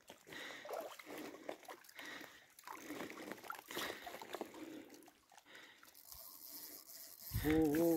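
Faint water lapping against a rocky shore, with scattered small knocks and rustles. A man's voice starts near the end.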